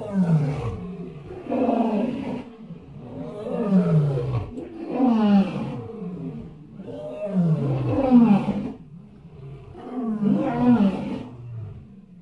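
A large animal calling in a repeated series of deep, roaring calls, each falling in pitch, about one every second and a half.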